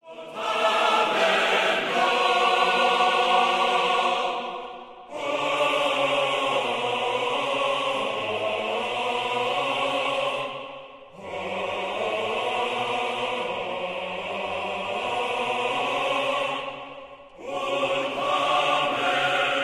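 Choral music as a soundtrack: long held chords sung by a choir, in phrases of about five seconds that fade briefly between them.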